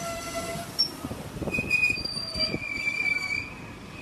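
Freight train's hopper wagons rolling past at close range, their wheels clattering over the track. A high, steady wheel squeal rises about one and a half seconds in and holds for nearly two seconds.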